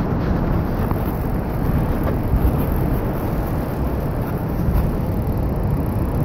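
Wind buffeting the microphone of a moving handheld camera: a steady, fluttering low rumble.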